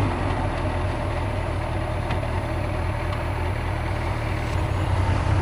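Suzuki GSX-R motorcycle's inline-four engine running steadily at low revs, with no revving, as the bike rolls slowly.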